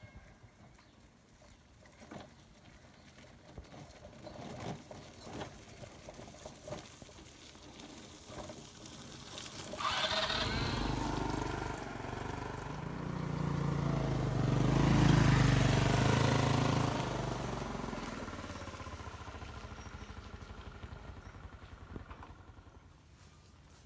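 Motor scooter engine running as the scooter rides past on a dirt track. It comes in about ten seconds in, grows to its loudest a few seconds later, then fades away over several seconds.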